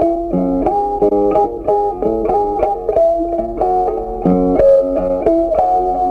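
Background music: a plucked guitar tune, a steady run of single notes.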